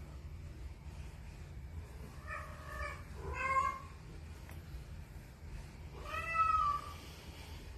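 Kitten meowing three times: two short meows close together about two and a half seconds in, then a longer one near the end.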